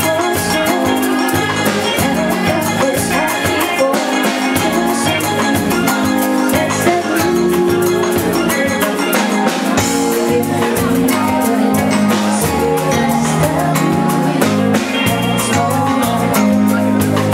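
Live band playing a song with drum kit, electric guitar, bass and keyboard, a woman singing into the microphone.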